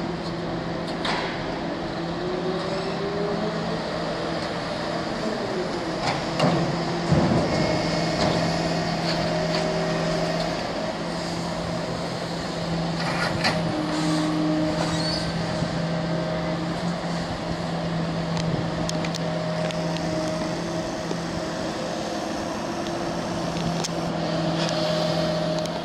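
Diesel engines of a long-reach excavator and tipper truck running steadily, with a few sharp knocks and clanks, about six to seven seconds in and again around thirteen seconds.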